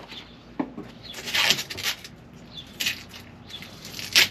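Handling noise from plastic containers: a plastic measuring bucket is moved across the floor and a gallon jug of epoxy hardener is grabbed. This gives a few short rustles and scrapes, with a sharper knock near the end.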